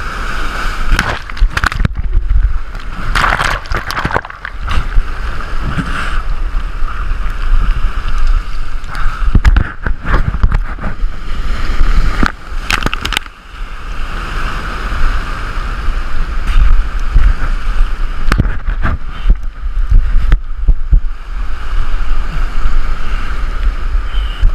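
Heavy surf breaking over shoreline rocks and washing through them: a continuous rush of churning water with a deep rumble, broken by frequent short knocks and thumps.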